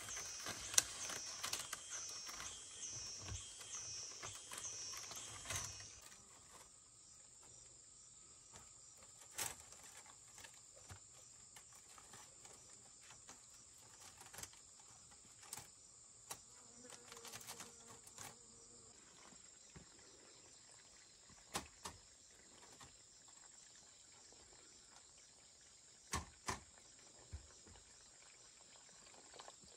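Insects chirring high-pitched, swelling about once a second for the first six seconds, then settling into a thin steady drone. Scattered sharp clicks and knocks are heard over it.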